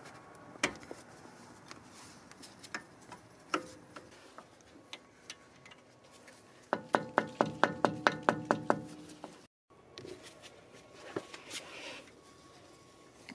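A quick run of about a dozen sharp metallic taps, roughly six a second, each leaving a short ringing tone: a brake pad retaining pin being tapped into an AMG front brake caliper. A few isolated clicks and knocks come before and after.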